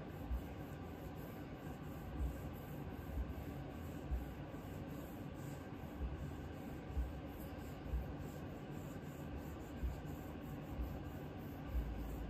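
Green abrasive pad scrubbing back and forth over the steel receiver and barrel of a Remington 1100 shotgun, a steady rubbing hiss, with dull low bumps about once a second.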